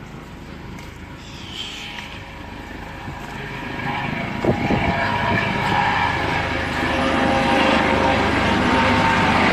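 Coast Guard helicopter flying low past, its engine and rotor noise growing steadily louder as it approaches.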